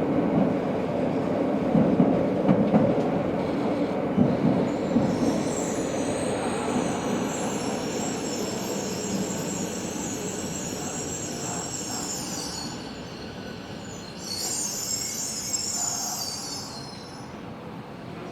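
Tobu 70000 series subway train heard from inside the car, its running rumble fading as it slows. High-pitched wheel squeal comes in twice, first at about five seconds and again near the end.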